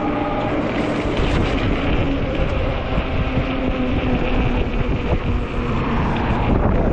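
Strong wind buffeting the microphone while a 48 V fat-tire e-bike is ridden, with a steady whine from its electric motor drifting slowly in pitch.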